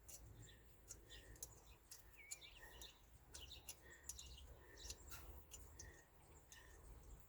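Faint, irregular metallic clicks of an open-end wrench working a small bolt loose. A bird chirps faintly in the background, a short note repeating about every second.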